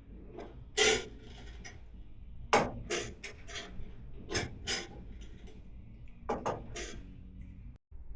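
Irregular metallic clicks and knocks of hand tools and hinge parts as new bonnet hinges are bolted onto a classic Mini's body.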